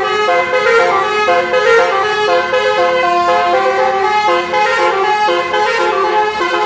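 Basuri telolet bus horn, a set of multi-trumpet air horns, playing a fast melody of short changing notes, several sounding together.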